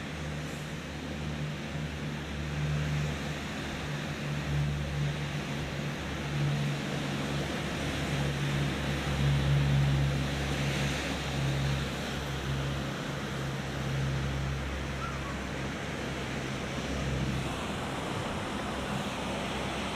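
Ocean surf washing steadily onto the beach, with a low motor hum underneath that stops near the end.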